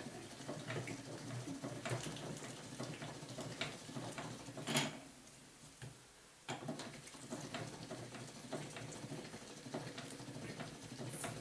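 Hand-crank sausage stuffer being turned while bratwurst meat is pushed into casings: scattered light clicks and knocks from the crank mechanism and handling, with a short lull about five seconds in.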